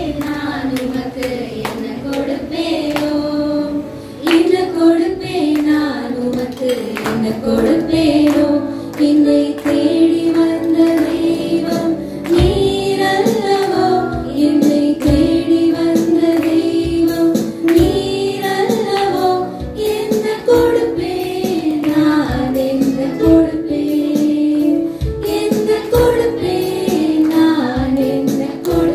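Music: a song sung by women's and children's voices, with a beat of percussion strokes joining in about twelve seconds in.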